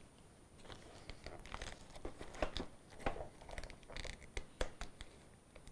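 Plastic shrink-wrap on a small box crinkling and tearing as it is cut open with scissors: a run of faint, irregular crackles and snips.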